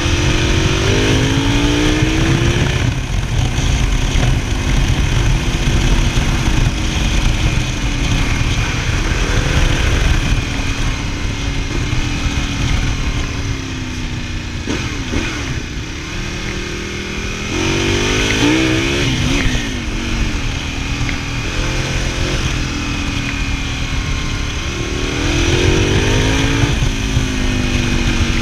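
Ducati Multistrada 1000DS's L-twin engine pulling on the road, heard from onboard: its pitch climbs under acceleration three times, with drops between, and eases back down in the quieter stretches. Heavy wind rumble on the microphone underneath.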